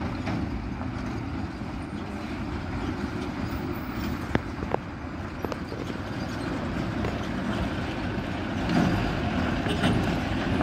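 Diesel engines of loaded lorries running as they come round a hairpin bend, the rumble growing louder near the end as the lead truck approaches. Two short clicks about four and a half seconds in.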